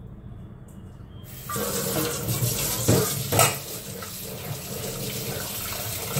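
A kitchen tap is turned on about a second and a half in, and water runs steadily into a sink. There are two short, loud knocks near the three-second mark.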